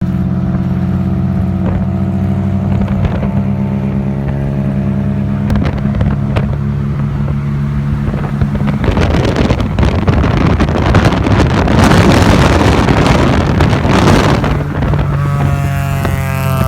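Honda Civic's engine and exhaust while cruising: a steady drone for about nine seconds, then a louder, rougher stretch with wind noise, and near the end the steady engine note returns, shifting in pitch.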